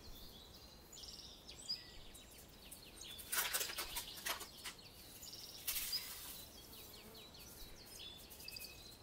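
Crisp lace crêpes (crêpes dentelle) being crumbled by hand into melted milk chocolate: two short bursts of dry crackling, the first about three and a half seconds in and the second around six seconds. Faint bird chirps sound throughout.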